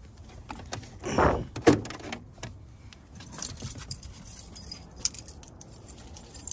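Small metal objects jingling and clicking, with two louder knocks a little over a second in and scattered ticks after.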